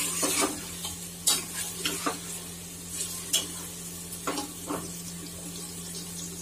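Onion slices sizzling in hot ghee in a pressure cooker as they fry toward golden brown, stirred with a steel ladle that scrapes and clinks against the pot about once a second. A steady low hum runs underneath.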